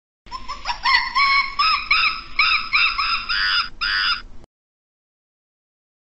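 A primate calling: a quick run of repeated high, arched notes lasting about four seconds, then cutting off suddenly.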